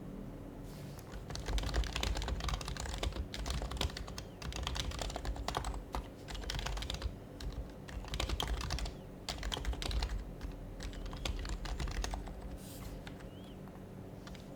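Typing on an HHKB Professional HYBRID Type-S keyboard, its silenced Topre capacitive keys pressed in quick runs of keystrokes with short pauses between bursts. The typing starts about a second in and stops a couple of seconds before the end.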